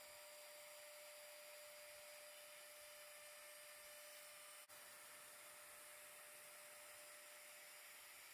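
Near silence: a faint, steady hiss with a thin electrical hum and no sign of the router running.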